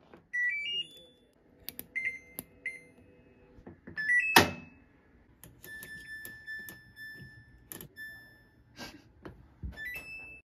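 Electronic beeps: short rising runs of two or three tones, then single held beeps, mixed with sharp clicks and taps and one louder knock about four seconds in.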